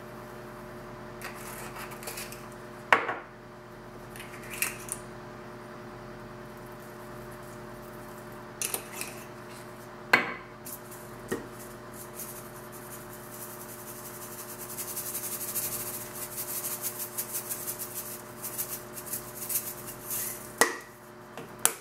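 Spice jars being handled over a metal baking sheet: several sharp clicks and taps of jars and lids being opened and set down, then, about two-thirds of the way in, a fast fine rattle of seasoning being shaken from a shaker jar for several seconds. A steady faint hum runs underneath.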